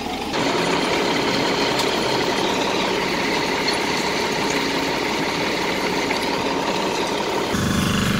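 Heavy truck's diesel engine running steadily, the sound changing abruptly about a second in and again near the end, where a stronger low hum takes over.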